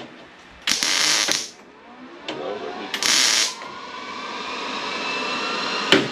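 Welder laying two short tack welds on car-body sheet metal, each a harsh crackling hiss of about half a second, to hold the panel in place. After the second tack a faint mechanical whine slowly rises in pitch, and there is a sharp click near the end.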